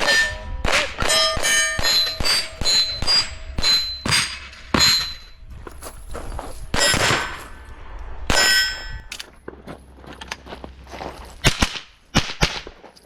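Rimfire rifle firing a rapid string of shots at steel targets, the plates clanging and ringing on hits. The shots thin out after about nine seconds, with a few last sharp cracks near the end.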